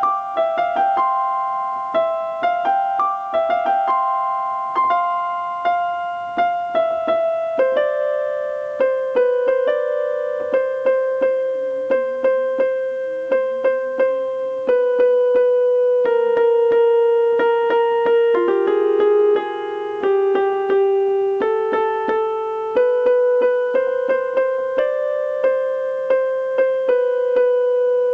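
Piano music: a slow melody with held notes over a steady pulse of repeated notes.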